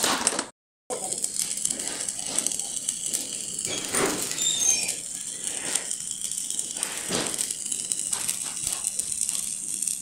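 Stick (arc) welding on sheet steel: the electrode arc gives a steady, even crackle with occasional louder pops. The sound cuts out briefly just under a second in, then resumes.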